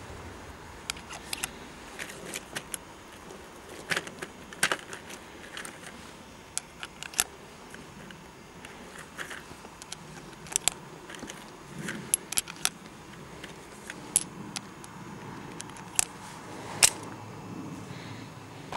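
Irregular metallic clicks and clinks as .357 Magnum cartridges are taken from a plastic ammo tray and slid one by one into the chambers of a stainless Smith & Wesson 686 revolver's cylinder. A louder sharp click near the end comes as the cylinder is swung shut.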